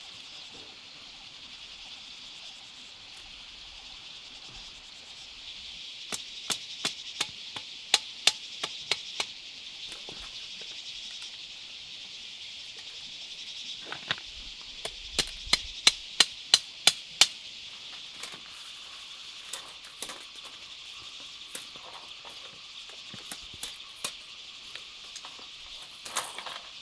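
Repeated sharp blows from a hand tool, about three a second, in two runs of about ten, followed by scattered lighter taps. A steady high insect chorus runs underneath.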